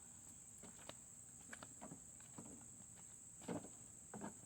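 Faint, steady high-pitched drone of insects, like crickets, with a few soft knocks about three and a half seconds in and again a little later.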